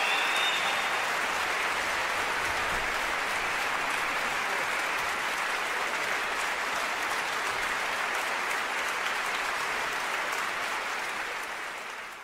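Audience applause, a steady patter of many clapping hands that fades out near the end.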